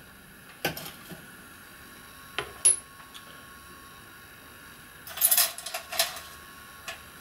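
Small metal pieces being handled and set down on a metal lathe's carriage: scattered light clinks and taps, a few in the first three seconds and a busier cluster about five to six seconds in.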